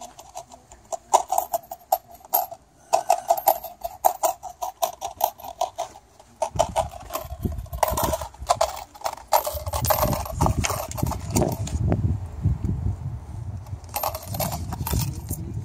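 Small coins clinking and clicking as change is picked out of a wallet, then handled in a paper cup. A low rumbling noise comes in about six seconds in and runs under the later clinks.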